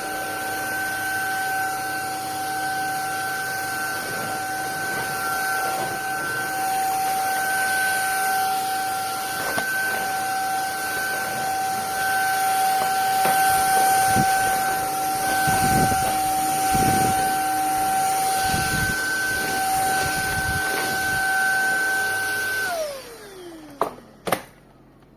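Bulelink cordless stick vacuum cleaner running with a steady high whine and hiss, with a few dull knocks in the middle. Near the end it is switched off: the motor whine falls in pitch as it spins down, followed by two short clicks.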